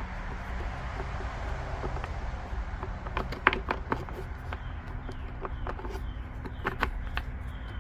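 Sped-up handwork on a pool pump being reassembled: a steady low noise with a run of sharp clicks and taps from about three seconds in, from tools and screws working on the pump housing.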